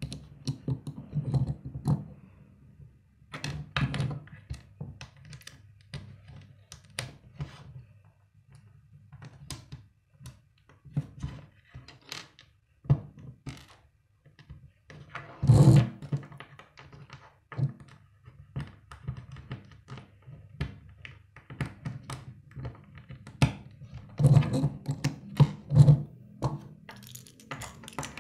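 Plastic Lego bricks clicking and knocking as they are handled, pressed together and set down on a wooden tabletop: irregular small clicks, with one louder knock about halfway through.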